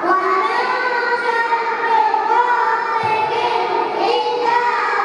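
A group of children's voices singing or chanting together in unison, holding long melodic notes that bend gently in pitch.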